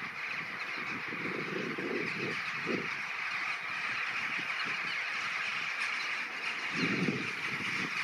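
A huge flock of rooks and jackdaws calling all at once as it gathers to roost, a dense, unbroken din of many birds.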